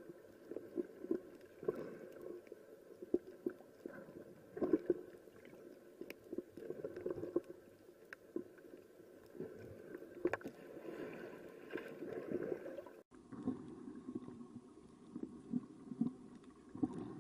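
Muffled underwater sound as picked up by a camera below the surface: a low water rush with irregular knocks and thumps from swimmers moving through the water. The sound changes abruptly about two-thirds of the way through.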